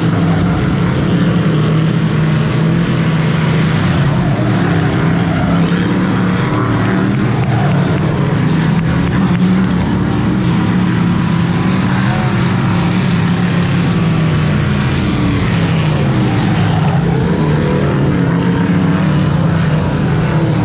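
A pack of dirt-track Sportsman modified race cars running hard around the oval. Several engines overlap, their pitch rising and falling as they go through the corners and down the straights.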